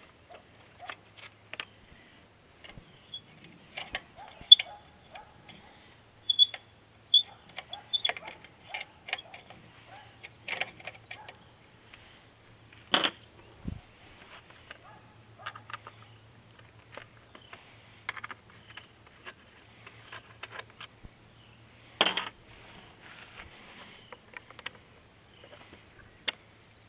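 Hand tools and bolts clicking and clinking on a dirt bike as its radiator shroud fasteners are taken out, with a couple of sharper knocks and a faint low hum that comes and goes.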